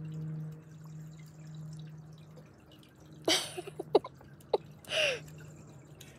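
Tiered garden fountain trickling and dripping over a steady low hum. Between about three and five seconds in come a few sharp clicks and short louder sounds.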